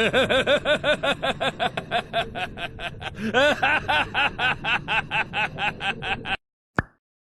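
An anime character's voice laughing in a rapid run of short rising-and-falling syllables, about five a second. The laugh starts over a little past three seconds in and stops abruptly near the end.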